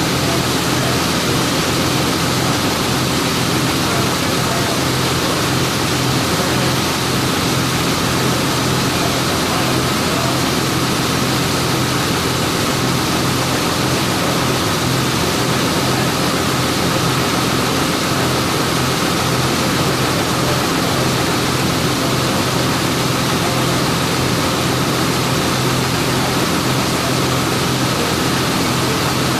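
A vehicle running steadily: a constant engine hum under an even rush of road and wind noise, with no change in speed or load.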